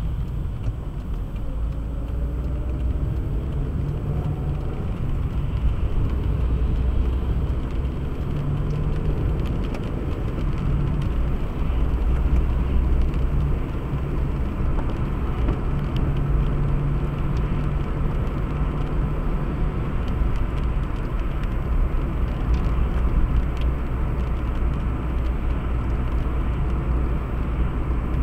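Car driving on a highway: a steady low rumble of engine and tyre noise. A faint engine note rises in pitch over the first few seconds as the car speeds up.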